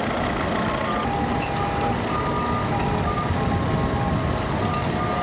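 Vintage tractor engine running steadily, with short high tones of varying pitch flickering over it.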